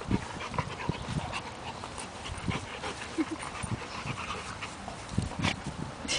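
Two dogs play-fighting: scuffling with short dog noises at irregular intervals.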